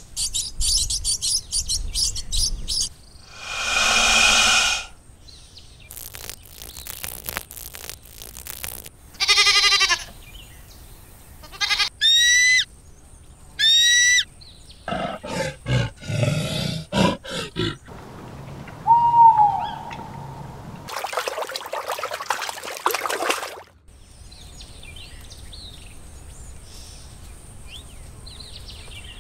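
A string of different animal calls played one after another, each a few seconds or less, with short gaps: fast high trills, a long pitched call, clicks, two rising whistles and bursts of noise.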